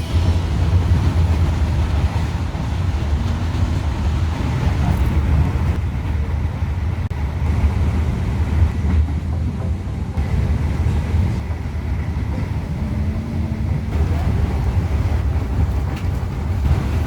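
Regional train in motion: a steady low rumble with a constant hiss of running noise.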